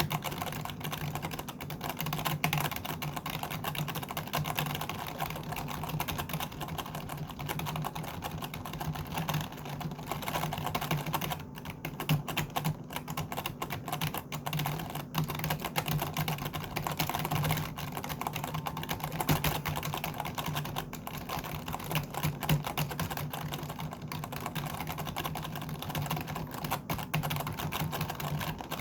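Computer keyboard being typed on: a fast, continuous run of key clicks, thinning out briefly about twelve seconds in.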